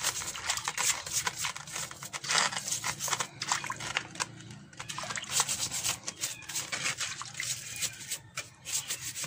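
Stiff plastic brush scrubbing a turtle's shell in a shallow basin of water: quick, irregular scratchy strokes with water splashing and dripping.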